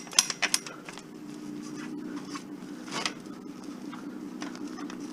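Metal ironing board being handled and folded up: a quick run of sharp metallic clicks and rattles at the start, and a single knock about three seconds in, over a steady low hum.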